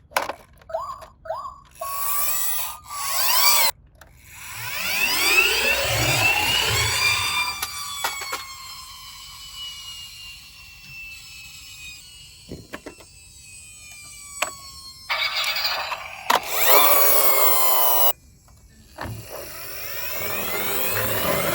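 Ambulance sirens wailing with rising and falling pitch sweeps, one long falling tone among them. Sharp clicks and knocks come in between, like toy cars clattering down a plastic slide.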